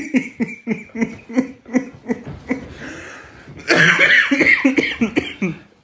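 Men laughing in short breathy pulses, about four a second, which die down after a couple of seconds. A loud breathy outburst follows, starting a little under four seconds in and lasting about a second and a half.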